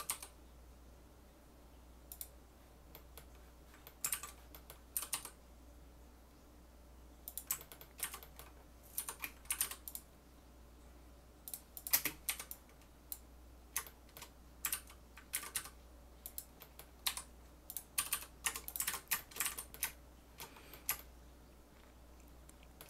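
Computer keyboard keys clacking in irregular clusters of quick presses with short pauses between, over a faint steady hum from a fan.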